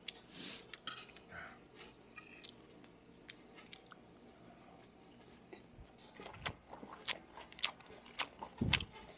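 Close-miked chewing of food into a small microphone held at the mouth: wet smacking and many small clicks, busier in the second half, with a dull bump near the end.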